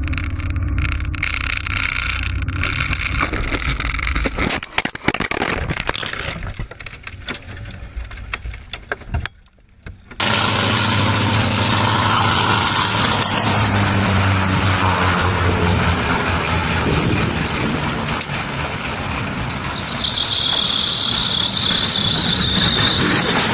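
Light aircraft's engine and propeller droning as heard inside the cockpit, breaking up into irregular knocks and rattles before dropping almost to silence about nine seconds in. Then a small piston helicopter's engine and rotor run steadily on the ground, with a higher whine coming in about twenty seconds in.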